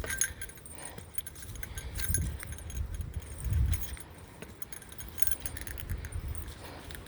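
A small bear bell jingling in light irregular tinkles as its wearer hikes uphill. Dull low bursts come every second or two underneath.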